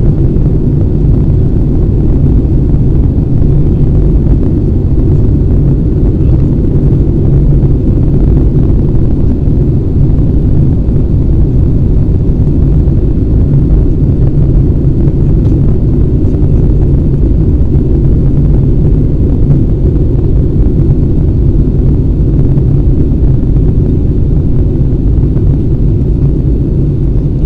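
Steady low rumble of engine and airflow noise inside the cabin of an Airbus A320 airliner in flight.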